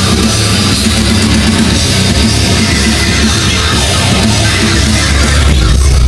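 Heavy metal music with guitar and drums played loud through an Onkyo home-theater speaker system (HTC-RC180 receiver, SKS-HT870 speakers) with the subwoofer turned up high, so the deep bass is the strongest part.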